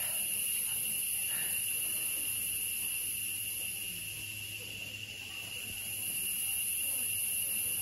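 Insects, such as crickets or cicadas, keep up a steady high-pitched chorus at two pitches, one very high and one lower, with no break.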